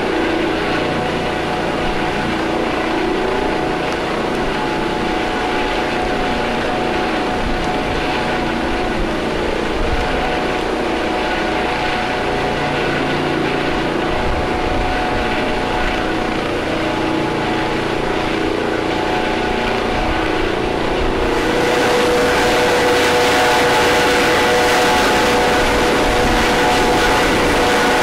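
Helicopter running steadily, a constant turbine whine over engine and rotor noise. About three-quarters of the way through the sound turns brighter and slightly louder, with a new steady tone.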